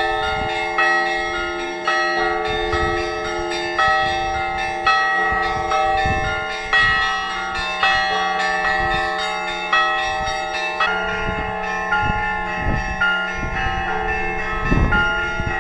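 Orthodox church bells ringing a loud peal: several bells of different pitches are struck in quick succession, and their tones ring on over one another.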